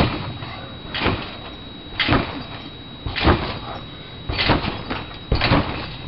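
Trampoline bouncing: a thud with a short rattle each time the jumper lands on the mat, six times at about one-second intervals.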